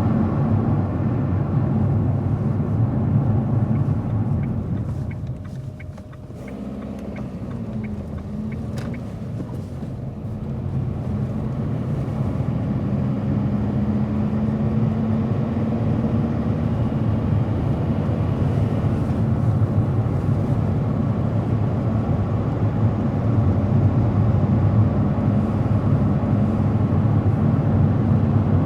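Car driving on the road: steady engine and tyre rumble. It drops briefly about six seconds in as the car eases off, then builds back up to a steady drone.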